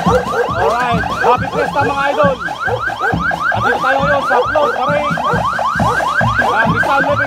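Police vehicle's electronic siren in a fast yelp: short rising sweeps repeated about seven times a second, with other wavering tones and low thumps beneath.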